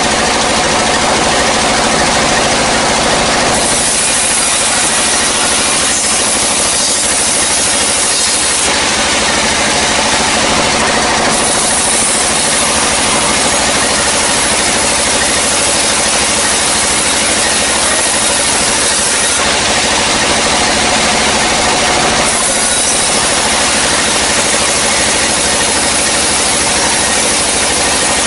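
Vertical band sawmill running steadily while its blade cuts lengthwise through a dry hardwood log. The steady machine hum runs throughout, and the sharper rasp of the cut grows and eases several times as the wood is pushed through and repositioned.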